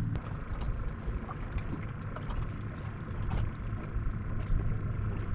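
Open-air sound aboard a small fishing boat on the water: an uneven low rumble like wind on the microphone, over a steady low hum, with scattered light clicks and taps.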